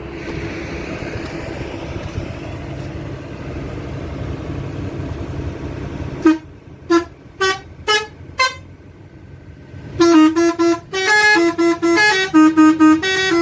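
Six-trumpet telolet air horn: after about six seconds of a steady noisy running sound, it gives five short separate toots, then from about ten seconds in plays a quick melody of changing horn notes.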